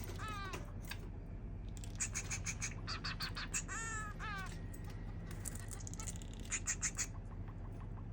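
Society finch (Bengalese finch) singing its chu-chu-chu song. Bursts of rapid short notes come in phrases, one of them ending in a few curved notes falling in pitch.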